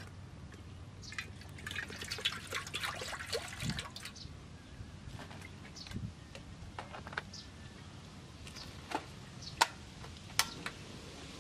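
Water poured from a plastic jug into a steel pot, splashing and dripping for a couple of seconds, followed by scattered small clicks and two sharp knocks near the end.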